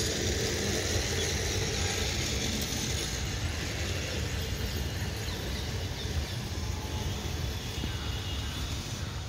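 Steady outdoor background noise: a continuous low rumble with a hiss above it, a little louder for the first few seconds, with no distinct events.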